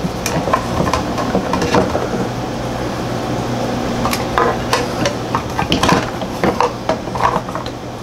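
Irregular plastic clicks and knocks as a doorbell chime's snap-on plastic cover and a screwdriver are handled against the chime box, with the loudest run of knocks about six seconds in. A steady low hum runs underneath.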